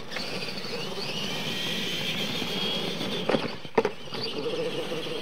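Radio-controlled monster trucks racing on dirt, their electric motors whining high and shifting in pitch with the throttle. Two sharp knocks about half a second apart, a little past the middle, as a truck lands off a ramp.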